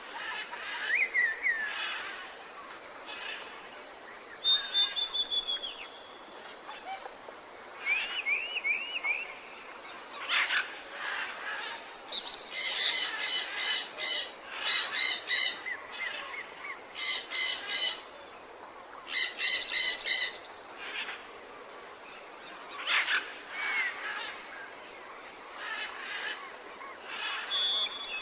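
Tropical forest ambience: several birds calling, with whistled rising and falling notes and, about halfway through, a loud repeated rattling call in four bouts. A steady hum of insects runs underneath.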